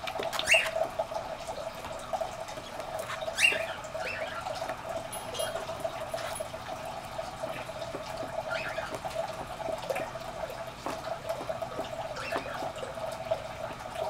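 Baby cockatiel chicks giving short calls every few seconds, over a steady droning tone.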